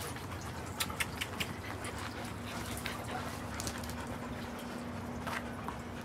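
Several dogs moving about on a patio mat, with soft scuffling and a scattered handful of light clicks.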